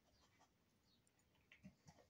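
Near silence: faint rustling from a large dog nosing through a knotted rope toy on carpet to sniff out hidden treats, with a few soft clicks near the end.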